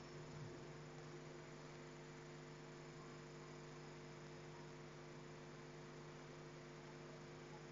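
Near silence with a faint, steady electrical hum made of several tones.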